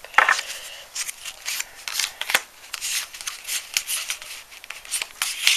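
A small stack of Pokémon trading cards being handled, the cards sliding and flicking over one another in a run of quick, irregular swishes and clicks.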